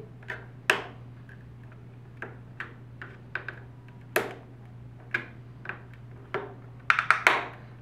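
Flathead screwdriver tip prying at the white plastic retaining clips of a SMART Board rail, making irregular sharp clicks and ticks of metal on plastic, the loudest about four seconds in. A quick flurry of clicks near the end as the first clip comes free.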